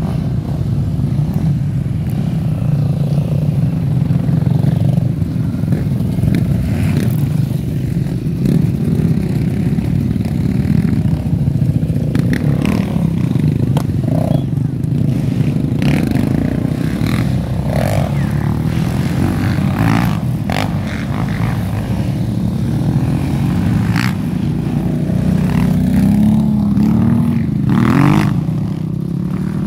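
Off-road vehicle engines, a 4x4 and quad bikes, running at low revs, with scattered clicks and knocks. Near the end a quad bike revs up in a few rising pulls.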